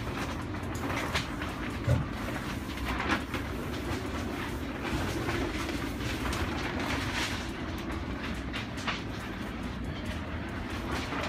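Steady low rumbling background noise with scattered light taps and rubbing as a cloth is wiped over a stainless steel steering wheel.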